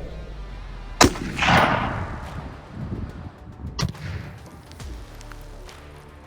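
A .270 Winchester rifle shot cracks about a second in, followed a moment later by the rolling boom of a pound of Tannerite exploding. Another sharp crack comes near four seconds.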